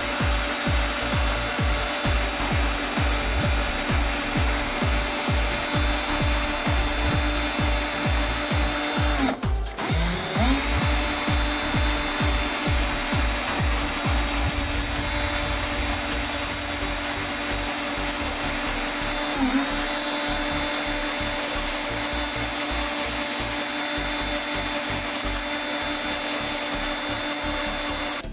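Cordless drill spinning a grinding-stone bit, with the rasp of a thin wooden strip being ground against the stone. The motor stops and spins back up about nine seconds in, and its pitch dips briefly under load about two-thirds of the way through.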